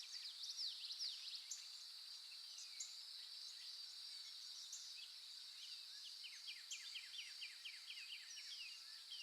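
Faint natural ambience: a steady high-pitched insect drone with many short bird chirps scattered over it. Past the middle, a bird gives a quick run of about a dozen repeated falling notes, roughly six a second.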